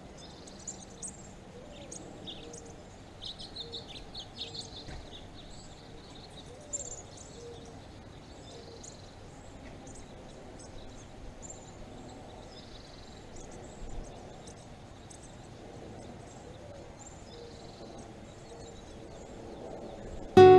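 Outdoor desert ambience: scattered short bird chirps and calls, thickest in the first few seconds, over a faint steady background hiss, with two brief low bumps, one about a third of the way in and one about two-thirds through.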